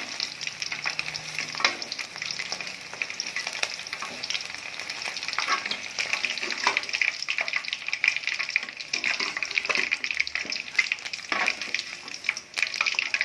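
Batter-coated chicken 65 pieces deep-frying in hot oil during their first, half-cooking fry: a steady crackling sizzle. Scattered short clicks come from a spoon in the pan as the pieces are stirred and lifted out.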